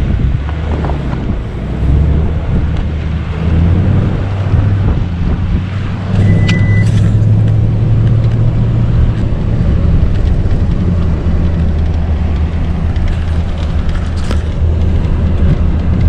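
Car driving on a snowy road, a steady low engine and road drone with tyre noise. A short high beep sounds once about six seconds in.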